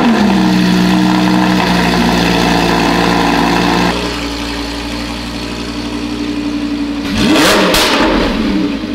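Lamborghini Huracan 5.2-litre V10 running through a Ryft titanium exhaust just after starting, settling from its start-up flare into a loud, steady high idle. About four seconds in, the exhaust valves close and the idle drops suddenly to a quieter note. Near the end the engine speed rises and falls once.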